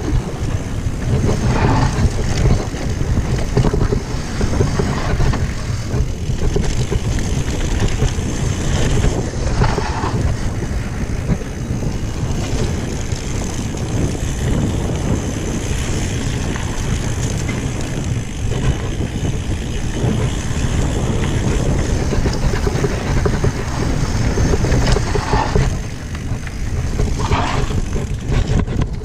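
Downhill mountain-bike ride: wind rushing over the microphone mixed with tyre and frame noise from the trail, a loud, steady rumble heaviest in the low end.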